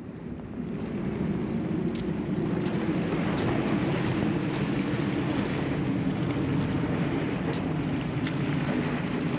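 Steady wind on the microphone and sea surf washing against the rocks of a jetty, a continuous rushing noise.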